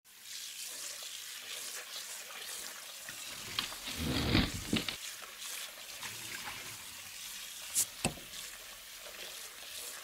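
Carbonated Red Bull energy drink fizzing and crackling in a glass, with a louder stretch of pouring about four seconds in and two sharp clicks near the end.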